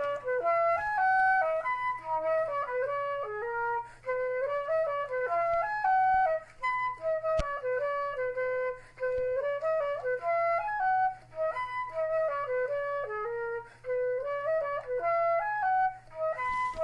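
Music: a single flute-like melody of short notes stepping up and down, played in phrases with brief pauses between them.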